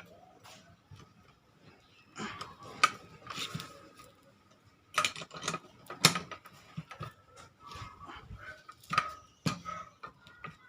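Socket wrench on an extension turning a 12 mm bolt counterclockwise inside a bicycle suspension fork leg, in bursts of clicking and metallic clinks.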